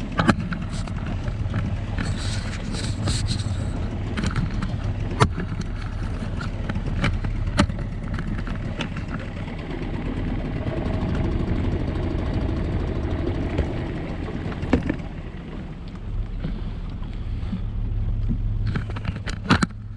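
Small boat motor running steadily with a low hum, holding the inflatable boat against wind-driven waves, with occasional sharp knocks.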